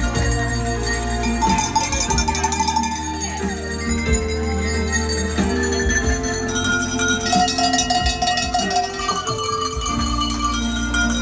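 A row of brass cowbells of graded sizes struck one after another with a hand-held striker to play a tune, the bells ringing on over one another, with sustained low accompanying notes underneath.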